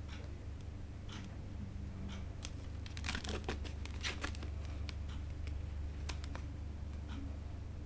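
Battery packaging being handled and torn open: scattered clicks and crinkles of plastic and cardboard, with a denser stretch of tearing and crinkling about three seconds in, over a low steady hum.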